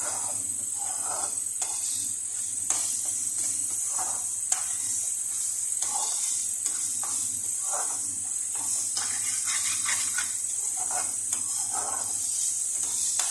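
Thick onion-tomato masala frying in oil in a pan, with a steady high sizzle, while a metal spatula stirs and scrapes it against the pan, giving irregular scraping and a few sharp clicks.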